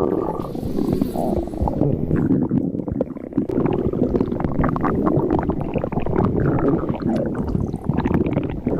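Stomach growling: a continuous gurgling rumble with scattered small pops and a few short squeaky rising and falling glides.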